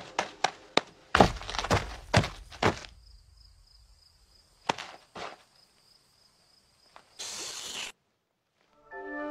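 Cartoon sound effects: a run of quick light taps, then several heavy thuds, then a steady high ringing tone with two more thuds in it. A short burst of hiss follows, then a moment of silence, and music comes back in near the end.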